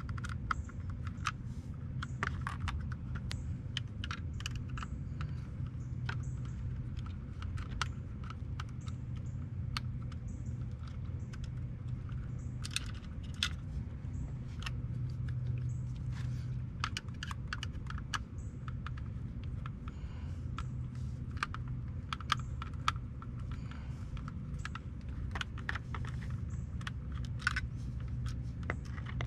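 Irregular small clicks and ticks of a screwdriver backing out the screws that hold a car's power window switch in its plastic carrier, with the plastic parts clicking as they are handled, over a steady low hum.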